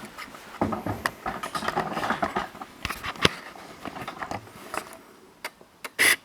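Handling noise of a camera being picked up and repositioned: irregular clicks, knocks and scraping, with a sharp knock about three seconds in and a short louder burst near the end.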